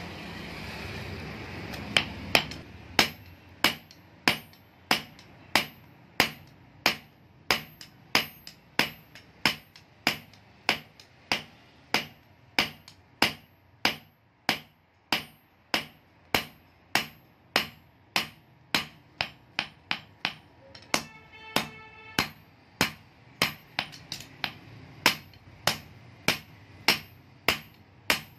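Hand hammer forging a red-hot steel knife blade on an anvil: steady blows, about one and a half to two a second, each with a short metallic ring. The blows begin about two seconds in.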